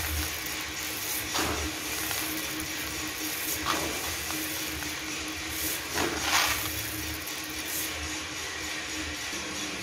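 Green peaberry coffee beans scooped by hand and let fall back onto a heap of beans, with louder pours about a second and a half, four and six seconds in, over a steady hum and hiss.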